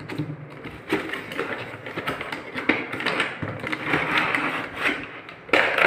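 Cardboard headphone box being unboxed: the inner box slides out of its sleeve, then the clear plastic packaging tray around the headphones rustles and crinkles, with scattered small handling clicks and taps.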